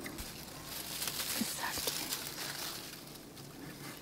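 Rustling of tomato plant leaves and stems as ripe tomatoes are picked by hand, with a few light knocks.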